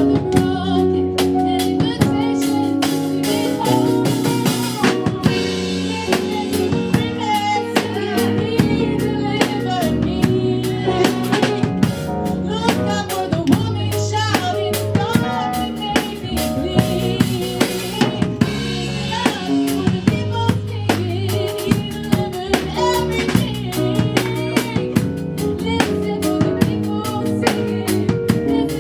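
Live gospel band playing an instrumental passage: a drum kit with snare, rimshots and bass drum keeps a steady beat over sustained chords.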